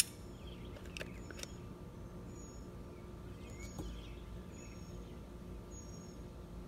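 A caulking gun clicks sharply once as its trigger is squeezed to push 3M 5200 sealant into a seam, with two lighter clicks about a second later. Faint short high-pitched chirps repeat every second or so over a low steady hum.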